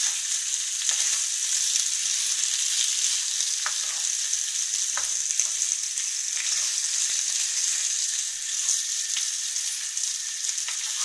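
Boiled potato cubes frying in a non-stick pan with a steady high sizzle. A spatula stirs them, tapping and scraping the pan a few times.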